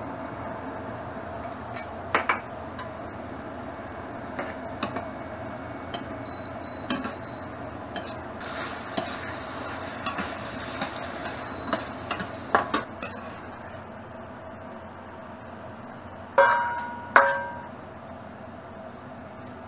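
A metal utensil clicks, knocks and scrapes against a wok while stir-fried noodles in a thickening potato-starch sauce are stirred, over a steady hum. Near the end come two louder ringing knocks.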